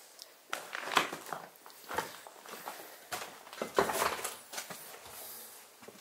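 Footsteps and shuffling, a few irregular scuffs and knocks, the loudest about one second and about four seconds in.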